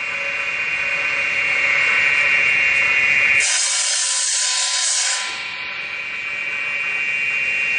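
Wooden-rod cutting machine's saw blade running with a steady high whine. About three and a half seconds in, a bundle of wooden rods goes into the blade and a hissing cutting noise takes over for just under two seconds, then the whine returns.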